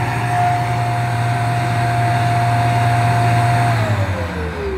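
Bissell PowerClean carpet washer's suction motor running steadily, then switched off a little under four seconds in, its pitch falling as it spins down. This comes once the float valve has activated on the full dirty-water tank.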